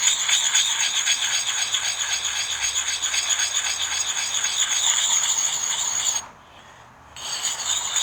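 Coarse side of a wetted dual-grit sharpening puck scraping over an axe's edge in quick, short strokes. It stops for about a second around six seconds in, then starts again.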